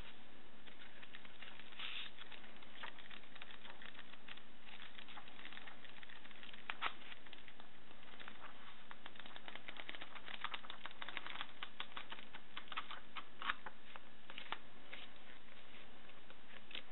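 A paper-wrapped book being handled: light, irregular crackles and taps of paper and pages, coming thicker about two-thirds of the way through.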